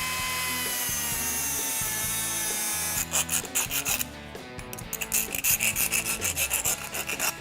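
A small high-speed power tool runs under load, cutting the door handle's latch pin to length with a steady high whine that sags slightly in pitch and stops about three seconds in. A file then rasps on the cut pin at about four strokes a second, dressing it down.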